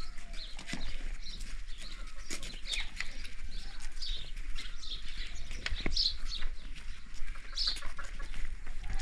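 Birds chirping: short high calls repeating about every second, over scattered footsteps on dry packed dirt and a low steady rumble.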